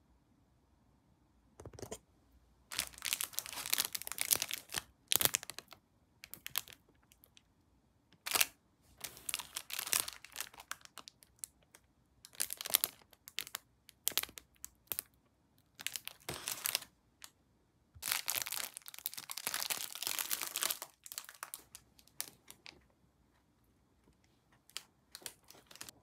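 Clear plastic wrapper around a scone crinkling and rustling in irregular bursts as it is opened and handled.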